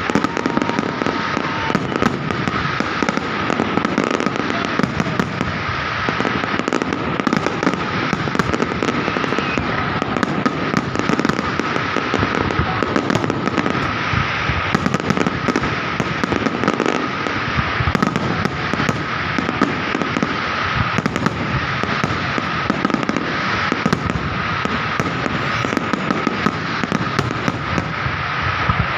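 Fireworks display: a dense, continuous barrage of bangs and crackling with no let-up, over a steady high tone.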